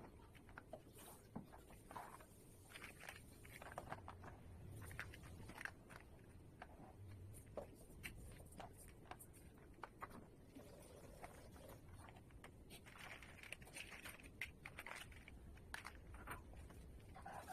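Faint plastic Lego bricks being handled and pressed together: scattered small clicks and rattles, irregular, several each second.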